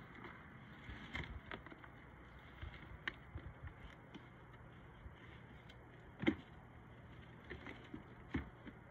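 A dog nosing and tearing at a cardboard box to get at kibble inside: scattered faint crinkles and crackles of cardboard, with two sharper knocks, about six seconds in and again near the end.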